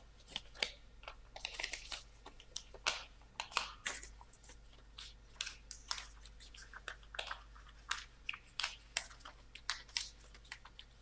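A large sheet of origami paper crinkling and crackling as it is folded back and forth and creased by hand, in many short irregular rustles and clicks.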